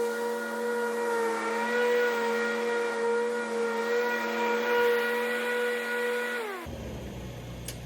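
John Deere zero-turn ride-on mower running with a steady high whine. About six and a half seconds in, the whine drops in pitch and cuts off, leaving a low rumble.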